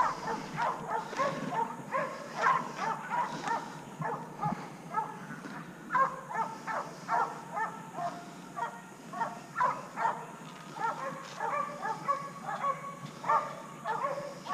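A dog barking and yipping over and over, several short barks each second.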